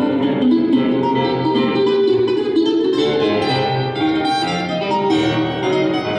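Ten-string mandolin and grand piano playing a duet live: the mandolin picks a melodic line over the piano's chords and low bass notes.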